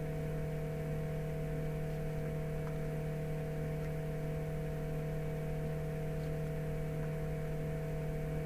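Steady electrical mains hum in the recording, a constant low buzzing drone made of a few fixed tones, with a few faint light ticks.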